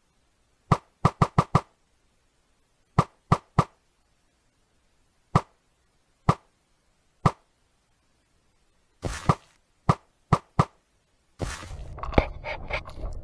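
HPA-powered AAP-01 airsoft pistol with a drill kit firing semi-auto: sharp pops, a quick string of five, then three, then single shots a second apart, then another string. The background is cut out between shots, and outdoor background noise with more pops comes in near the end.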